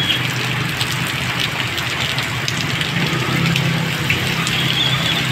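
Heavy rain pouring steadily onto a flooded road, with the hiss of tyres on wet asphalt and the low hum of passing motorcycles and cars.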